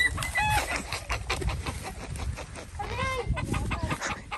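Chickens clucking: a couple of short rising calls near the start and one arched call about three seconds in. Light crunching steps on dry gravelly ground run underneath.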